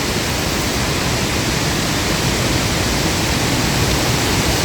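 Strong wind buffeting the microphone: a steady rushing noise with low rumbling gusts.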